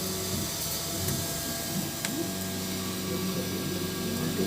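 3D printer running: its motors hum in steady tones that start, stop and change pitch as the print head moves, over a steady fan hiss, with one sharp click about two seconds in.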